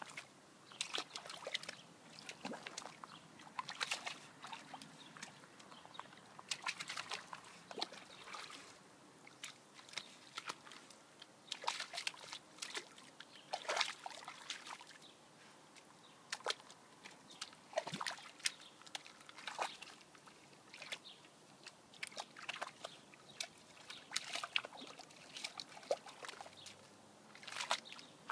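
A dog splashing about in a shallow muddy puddle: repeated, irregular sloshes and splashes of water.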